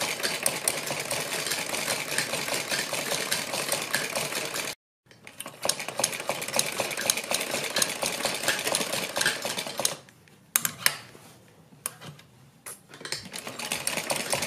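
Sewing machine stitching, a rapid even clatter of the needle running through the layered blouse fabric. It stops dead once, then runs again; a little later it drops to a quiet stretch with a few single clicks before stitching resumes.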